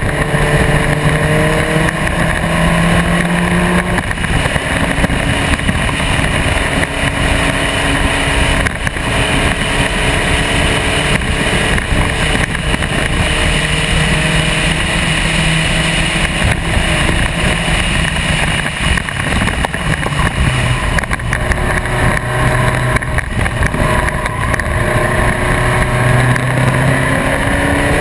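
Spec Racer Ford's four-cylinder race engine under load at speed on track, with wind noise. The engine note climbs near the start, drops about four seconds in, then rises and falls several times through the last third as the driver works the throttle and gears.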